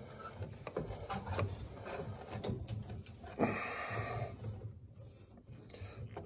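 Rubbing and scraping of hands and wiring against the boiler cabinet as a wire is handled and pulled through beside the gas valve, irregular throughout, with one sharper scrape a little after three seconds in.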